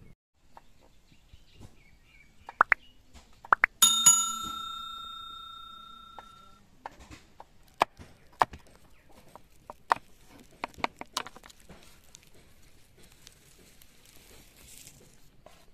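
A metal utensil clanks and rings out clearly, fading over a few seconds, followed by a large kitchen knife chopping green chillies on a wooden board in a series of sharp, irregular knocks.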